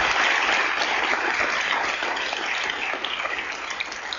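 Audience applause dying away, the dense clapping thinning to scattered claps near the end.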